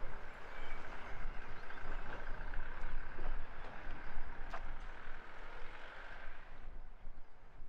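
Outdoor ambience in a car park: wind rumbling on the microphone, with a steady faint whine and a few light clicks. The whine stops near the end.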